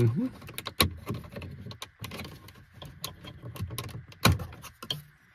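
Plastic trim removal tool prying an Audi A6 C7 dashboard trim panel loose: a run of small plastic clicks and scrapes, with two sharper snaps, about a second in and near the end, as the panel's hidden clips give.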